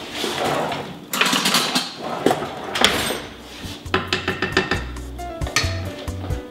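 Metal cooking pots and a mesh strainer being handled on the stovetop, clattering and scraping in several bursts with sharp knocks. About four seconds in, background music comes in.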